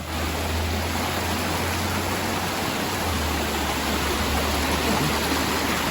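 Steady rush of water tumbling down a mountain waterfall cascade, heard close up, with a constant low rumble beneath it.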